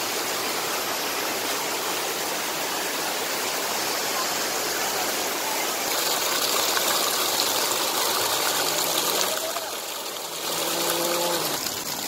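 Waterfall: a steady rush of falling water. It grows a little louder and hissier about halfway through, with a short dip near the end.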